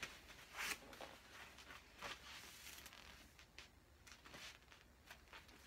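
Near silence in a small room, with a few faint rustles of clothing and a body shifting on an exercise mat while pushing up from lying into a back bend.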